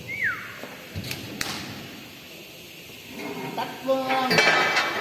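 A short falling squeak, then two sharp knocks, in a large hall where a ride is being taken apart. From about three seconds in, people's voices call out, loudest near the end.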